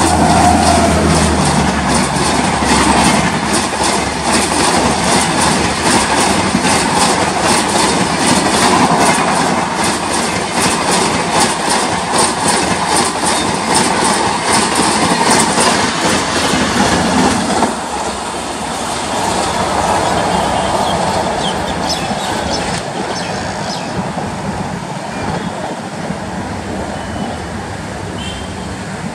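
Electric-hauled Rajdhani express passenger train passing close at high speed: a loud rush of coach wheels with a fast, even clatter over the rail joints, and the locomotive's low hum fading in the first second. About two-thirds of the way through the sound drops suddenly to a quieter, steadier train noise.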